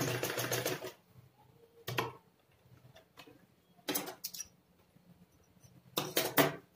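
Traditional black domestic sewing machine stitching with a rapid clatter that stops about a second in. A few separate sharp clicks and knocks follow as the stitched fabric strip is handled and pulled away from the machine.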